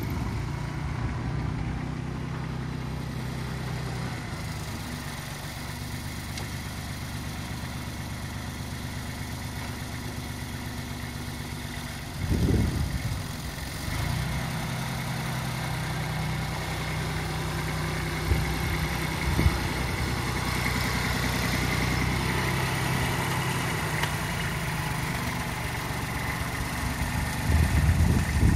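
Kubota GB200 compact tractor's diesel engine running steadily while the tractor pulls a potato ridger through the rows. About twelve seconds in there is a brief louder surge, and there are two short knocks a few seconds later. The engine grows louder near the end.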